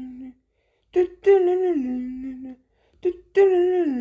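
A voice humming the same short phrase over and over: a brief note, then a longer one that slides down in pitch and holds, about every two and a half seconds.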